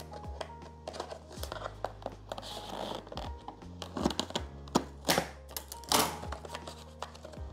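Packaging being handled and opened by hand: a series of short rustles and crinkles, the loudest about five and six seconds in, over steady background music.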